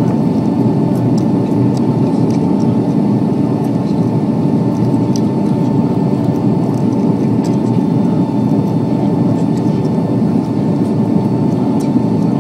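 Steady cabin roar of a Boeing 757 airliner in flight, engine and airflow noise, with a thin steady whine above it.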